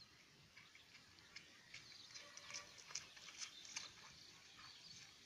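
Near silence: faint outdoor ambience with scattered, faint short ticks and chirps.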